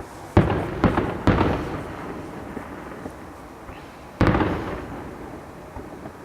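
Aerial fireworks bursting: three booms in quick succession within about a second, then a fourth about three seconds later, each trailing off in a rolling echo.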